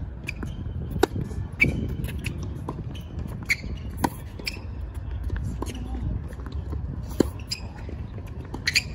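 Tennis rally on a hard court: sharp knocks of racket strings hitting the ball and the ball bouncing, every second or two, with short high squeaks of tennis shoes on the court surface.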